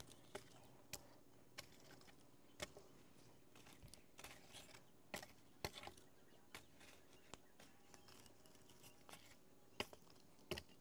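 Faint, irregular clicks and snaps from a wood fire of burnt planks whose embers are being raked flat with a long bamboo pole.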